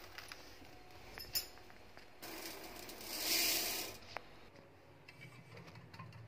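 Dry skinned whole urad dal poured into a stainless-steel bowl: a rattling pour of hard grains on metal that swells and fades over about two seconds, with a few sharp clicks just before it.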